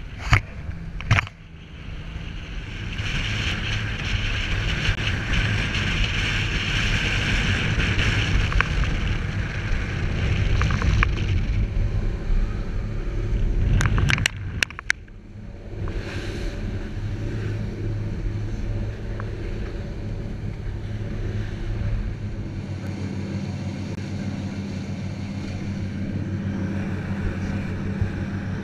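Lifeboat's diesel engines running steadily under way, with rushing water and wind blowing across the microphone. The sound drops out briefly about a second in and again around halfway through.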